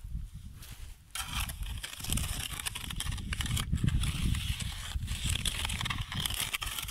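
Flat shovel blade scraping and patting over wet concrete, smoothing the top of a round concrete footing; it gets louder about a second in and keeps on over a low rumble.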